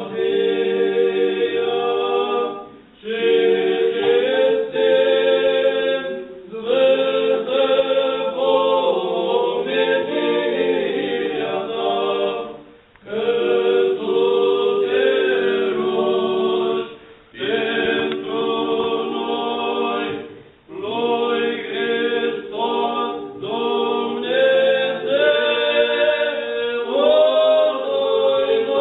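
Unaccompanied voices singing Orthodox liturgical chant together, in long held phrases broken by short pauses for breath.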